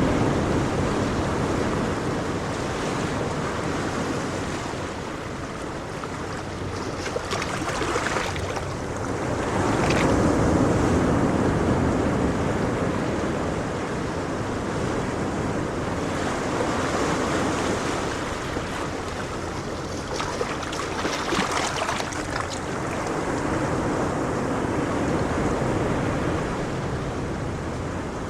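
Ocean waves washing onto the shore in slow swells, each surge building and fading over several seconds, with brief hissing splashes now and then.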